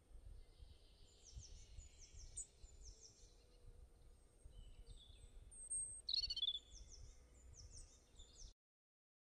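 Birds chirping faintly: short downward-sweeping chirps in a few runs, with one louder trilled call about six seconds in, over a low steady rumble. The sound cuts out to dead silence near the end.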